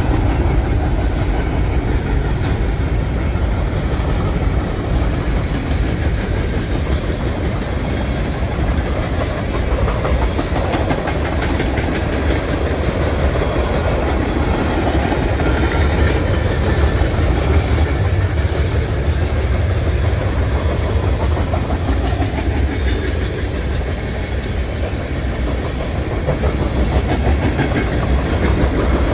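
Freight train cars, covered hoppers and tank cars, rolling past steadily: a continuous rumble of steel wheels on the rails with a clickety-clack of wheels over the rail joints.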